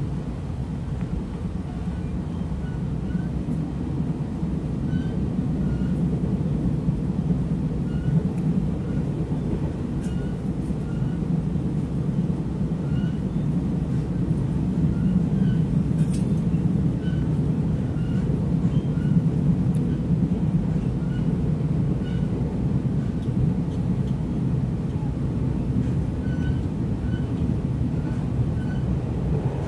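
Taiwan Railways passenger train running along the line, heard from inside the carriage: a steady low rumble of wheels on track, with faint short high chirps now and then.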